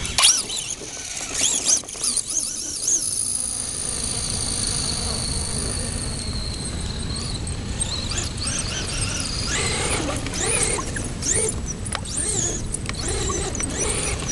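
High whine of a brushless-motored RC truck (Traxxas Slash 2WD, Castle 3600kv motor), slowly falling in pitch and fading over several seconds as it runs. It is mixed with short high squeals and yelps of excited dogs, which come thickest toward the end.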